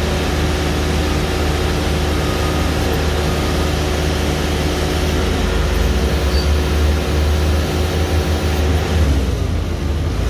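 Sandvik jumbo drill rig's engine and hydraulic power pack running steadily, a loud low hum with a steady whine over it. About nine seconds in the whine stops and the low rumble wavers.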